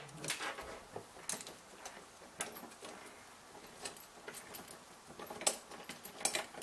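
Light metal clinks and clicks of steel parts, bolts and nuts being handled as a flat-bar bracket is fitted and bolted by hand; quiet and scattered, a few every second or so.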